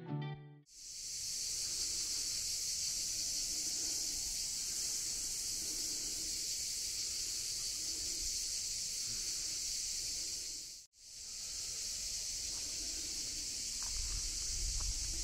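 Background guitar music cuts off in the first second, then a steady high-pitched outdoor hiss. It drops out briefly about eleven seconds in and returns, with a low rumble near the end.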